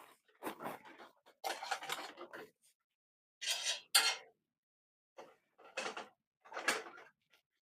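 Kitchen clatter of pans and dishes being handled, in about five separate short bursts.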